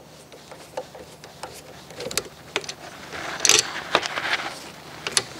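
Small metallic clicks and scrapes of hand tools working the screws that hold a portable bandsaw to its stand, with a louder clatter about three and a half seconds in.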